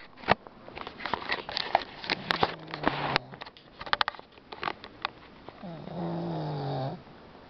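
Dog snoring heavily: two long droning snores, one about two seconds in and a louder one near six seconds, each about a second long, with short clicking crackles between them.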